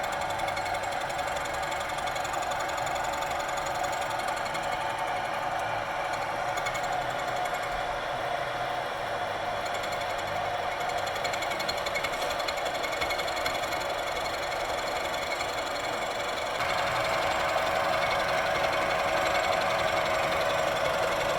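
Milling machine surfacing metal: the cutter running steadily through the cut with a fast, even ticking and a steady tone. It gets louder about three quarters of the way in.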